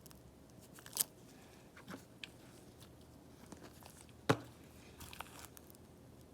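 A few light, scattered clicks and taps of small repair tools against an iPad during repair work, the sharpest about four seconds in.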